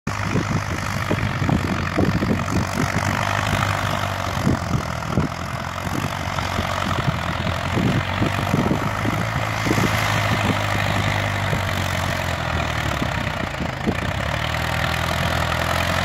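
Vintage tractor engine running steadily under load as it pulls a plough, with irregular low buffeting from wind on the microphone.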